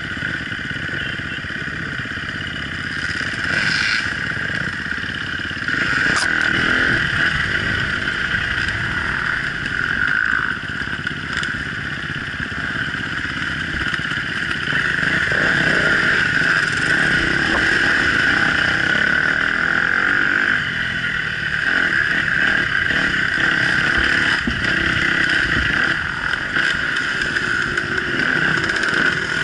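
Off-road motorcycle engine running on board while trail riding, rising and falling with the throttle over rough ground. There is clatter and an occasional knock from the bike over the bumps.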